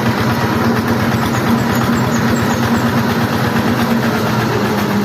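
Changfa single-cylinder diesel engine running steadily as it hauls a load, a dense, even clatter.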